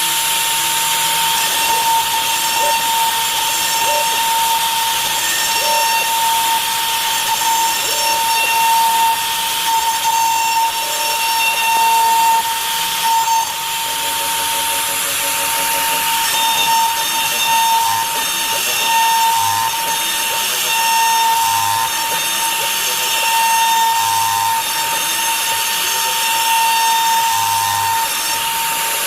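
CNC router carving wood in a roughing pass: the spindle runs with a steady high whine and a hiss of cutting, while short tones underneath keep switching pitch as the machine moves.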